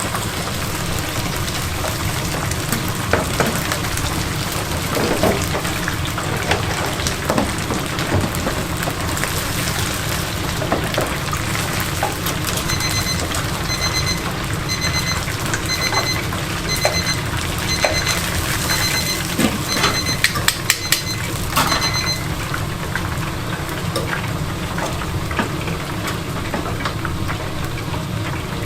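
Steady crackling hiss of chicken deep-frying in hot oil. Midway, an electronic beeper sounds about once a second, roughly ten times.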